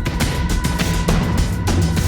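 Dark, tense background music with a steady beat of percussive hits under held tones.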